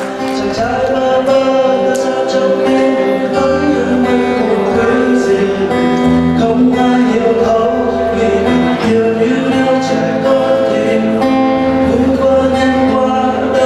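Acoustic guitar strummed with a voice singing a slow song over it, through a PA. Low bass notes join about three and a half seconds in.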